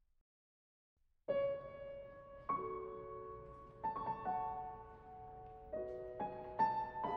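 Silence, then soft, slow background piano music begins about a second in, single notes and chords struck one after another and left to ring.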